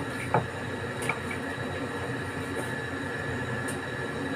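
A knife slicing raw chicken breast on a cutting board, with two short knocks of the blade against the board, about a third of a second and a second in, over a steady background noise.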